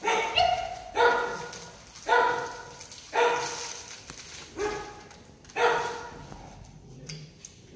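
German shepherd puppy barking in short, high-pitched yips, about once a second, some seven barks in all.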